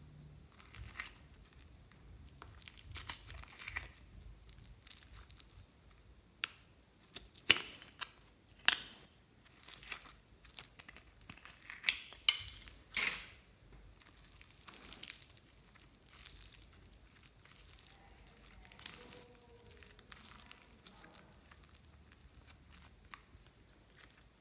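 Slime being squeezed, pulled and pressed by hand, with irregular sticky crackles and pops. The loudest sharp snaps come in a cluster around the middle, and quieter scattered crackling follows.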